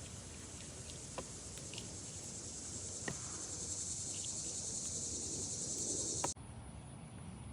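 Steady high-pitched insect trilling, like crickets, with a few faint taps. It grows slowly louder, then cuts off suddenly near the end.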